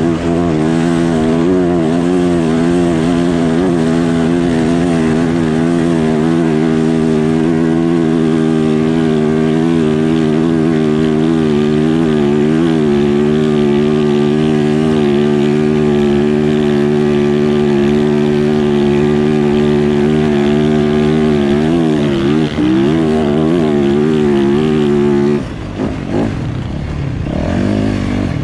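Motors running at a steady, held pitch that wavers slightly now and then, dropping away and breaking up about 25 seconds in.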